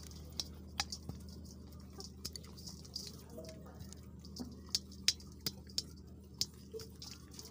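Hens pecking crumbled feed from a hand held over a bowl: irregular sharp taps of their beaks, a few a second. A steady low hum runs underneath.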